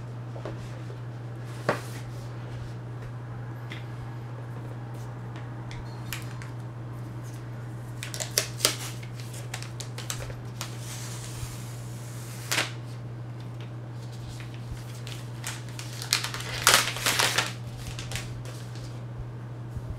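Hands handling an iPad Mini tablet and its cardboard box on a table: scattered light taps and clicks, a brief rustle about 11 seconds in, and a quick run of louder clicks and knocks near the end, the loudest part, over a steady low hum.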